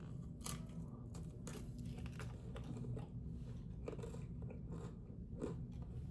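Someone biting into and chewing a pistachio cannoli, the crisp fried shell crunching in a string of irregular crackly bites.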